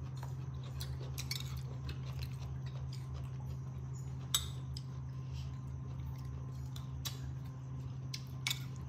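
A metal spoon clinking now and then against a ceramic bowl and plate, with sharp clicks about four and a half seconds in and again near the end, over a steady low hum.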